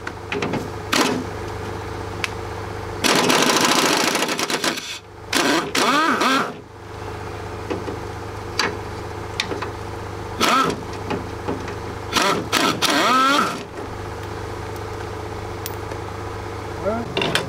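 Pneumatic impact wrench rattling in a series of bursts on the Land Rover seat box bolts. The longest burst is about two seconds, some three seconds in. A generator and air compressor run with a steady hum underneath.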